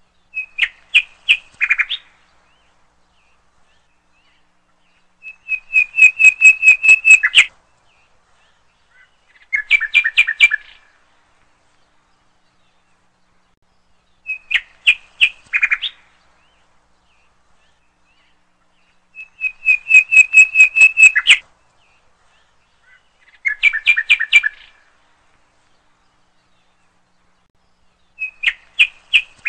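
Bird chirping in short phrases of rapid repeated notes, with silent gaps of a few seconds between them. The same three phrases come back about every 14 seconds, like a looped recording.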